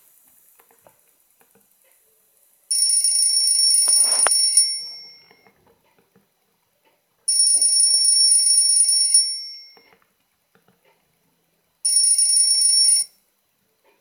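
Electronic alarm ringing: a high-pitched steady ring in three bursts, the first two about two seconds long and the last about one, with roughly three seconds of quiet between them.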